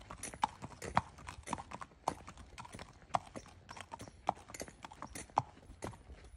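Hooves of a ridden grade gelding clip-clopping on concrete at a walk: a steady rhythm of sharp clicks, about two strong hoof strikes a second with lighter ones between.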